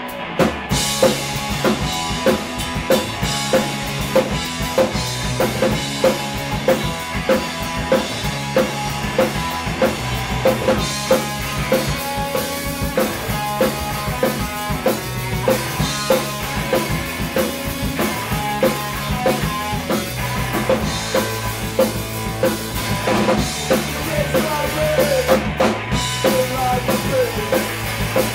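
Live rock band playing at full volume: a drum kit drives a fast, steady beat under electric guitar and low bass notes.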